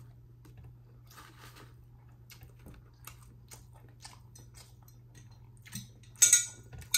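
Close-up chewing and mouth clicks while eating fried chicken, with a louder crunch about six seconds in.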